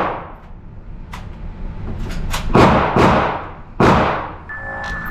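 Three .45 ACP shots from a 1911 pistol: two about half a second apart, then a third almost a second later, each with a short ringing tail. Music starts near the end.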